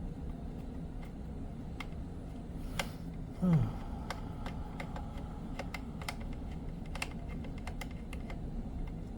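Scattered small clicks and taps of hand tools and small parts being handled on a desk, with a short sound that falls in pitch about three and a half seconds in.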